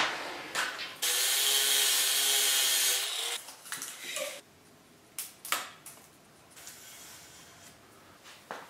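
Thin steel sheet scraping as it is slid across another sheet, with a metallic ring, for about two seconds. Then scattered light taps and clicks of tools set down on the metal.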